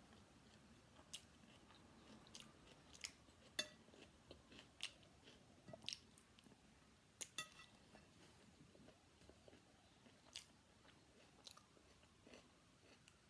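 Quiet close-up eating sounds: a metal spoon scraping and clinking on a ceramic plate and a mouthful of fried rice being chewed, heard as about a dozen small scattered clicks and smacks.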